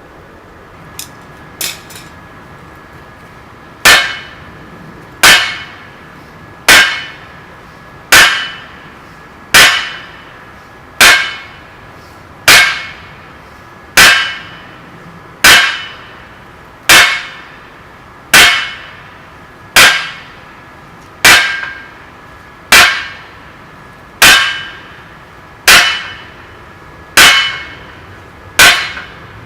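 Steady, evenly paced heavy hammer blows on 25 mm square mild steel stock at the anvil, about one every second and a half, each a ringing clang. A couple of light taps come before the strikes start, about four seconds in.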